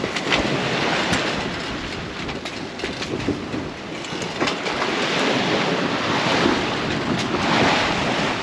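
Wind and rough sea water rushing around a sailing yacht under way, with a few small knocks.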